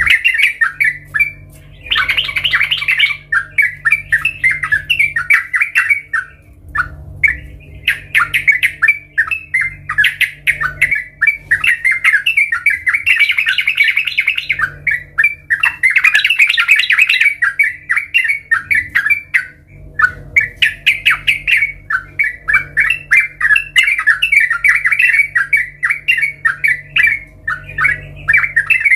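Yellow-vented bulbul (trucukan) singing: long runs of rapid, chattering notes broken by short pauses, with a faint low hum underneath.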